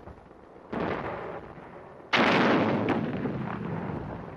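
Two artillery blasts: one about a second in, and a louder one about two seconds in that dies away slowly.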